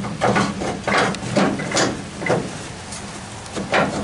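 A flatbed trailer's side-rail strap winch is turned by hand to roll up a yellow cargo strap. There are irregular clicks and knocks from the winch and the strap against it, with a louder knock near the end.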